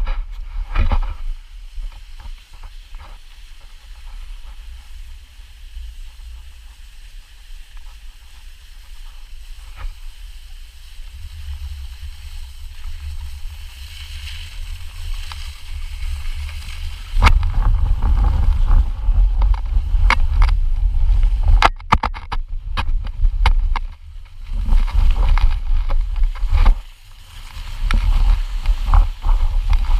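Wind buffeting the microphone and a plastic butt-sled hissing and scraping over snow on a fast downhill slide, with several sharp knocks. It gets much louder a little past the middle of the slide.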